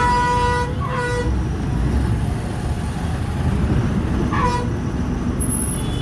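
Vehicle horns honking over steady road-traffic rumble. There is a honk of about a second at the start and a short second honk right after, then another brief honk about four and a half seconds in.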